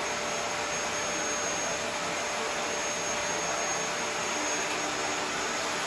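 Vacuum cleaner running steadily, a constant rushing hum with a faint steady whine.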